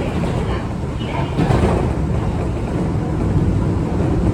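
Running noise inside a Keio 8000 series electric multiple unit motor car travelling between stations: a steady rumble of wheels and running gear on the rails.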